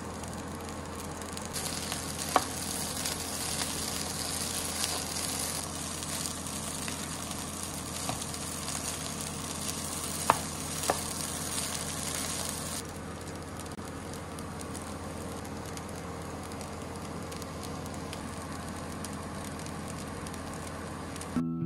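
Fried rice sizzling in a nonstick frying pan as it is stirred and tossed with a wooden spatula, with a few sharp taps of the spatula against the pan. The sizzle is brightest for about the first twelve seconds and then settles lower, over a steady low hum.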